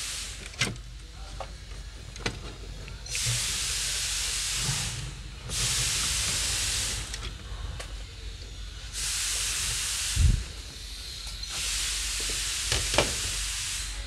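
Plastic-and-metal handling noises as an ABS control module is pulled off its hydraulic unit: a few light clicks and a dull knock about ten seconds in. A steady hiss comes and goes in stretches of a second or two.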